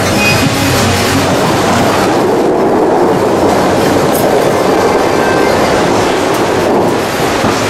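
Water from the Dubai Fountain's jets shooting up and crashing back into the lake: a loud, steady rushing roar of spray.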